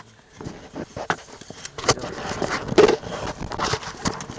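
Irregular scraping, crackling and knocking as hard floor pieces and the vinyl hull of an inflatable boat are handled and fitted together, with a louder knock near the three-second mark.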